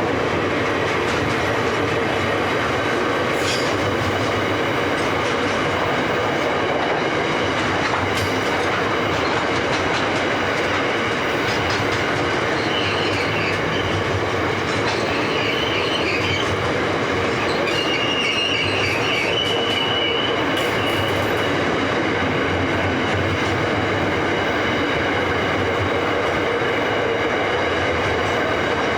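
Container freight wagons rolling past steadily, wheels clicking over the rails, with high-pitched wheel squeal coming and going about halfway through.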